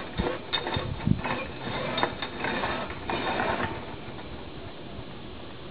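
Metal clinking and rattling of chain and rigging hardware on a steel tower's gin pole: a quick run of sharp clicks and clanks for about three and a half seconds, then only a steady faint hiss.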